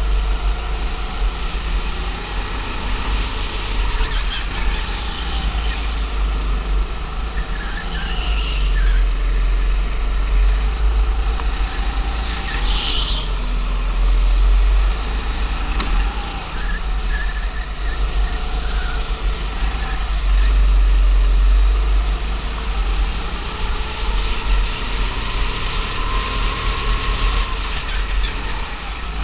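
Go-kart engine heard from on board, revving up and down as the kart accelerates and brakes through the corners over a heavy low rumble. A few short high squeals come through, the strongest about halfway.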